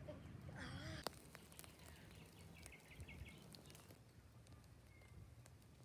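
Faint outdoor quiet with distant birds chirping, a short run of chirps a few seconds in, and a single sharp click about a second in.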